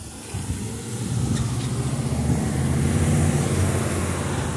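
Road traffic passing close by, a van driving past: engine hum and tyre noise that build about a second in and hold steady.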